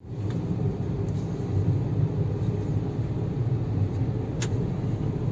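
Steady low road and engine rumble heard inside the cabin of a moving car, with a single brief click about four and a half seconds in.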